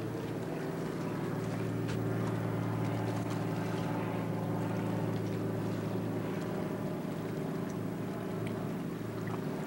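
Floatplane's propeller engine droning steadily overhead as it climbs away after takeoff from the lake, easing off slightly near the end.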